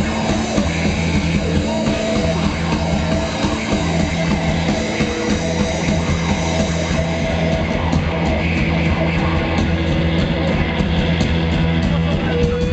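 Live rock band playing an instrumental break: distorted guitars over bass and drums.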